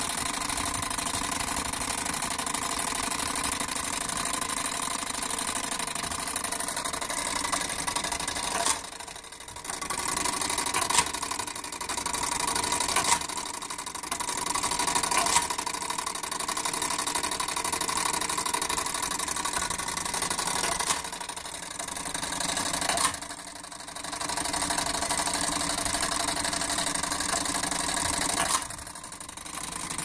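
Gamewell fire alarm punch register and call box mechanism running with a steady mechanical whir, broken every few seconds by sharp clacks as the register's electromagnet punches the box's coded alarm (box 424) into the paper tape.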